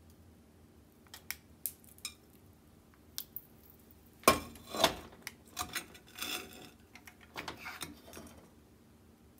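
Frozen ramen block, its frozen soup disc underneath, set down into an empty nonstick pot with two loud knocks about four seconds in, followed by lighter knocking and scraping as the block settles against the pot. A few small clicks come before it.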